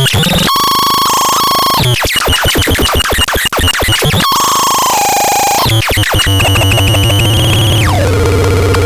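Hellbeltrach electronic noise synthesizer putting out harsh, loud buzzing tones that switch abruptly from one pitch to another. Partway through comes a couple of seconds of rapid stuttering sweeps. Near the end the tone glides down and settles on a lower buzz.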